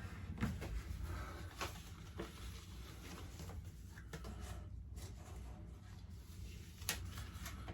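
Faint handling noise of stickers being peeled and pressed onto a wall: light rustling with a few soft taps and clicks, the sharpest near the end, over a low steady hum.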